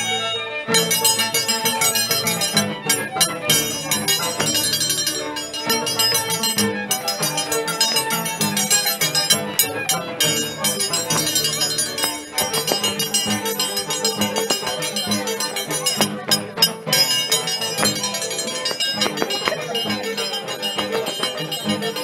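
Live Peruvian folk band music playing continuously with a steady beat.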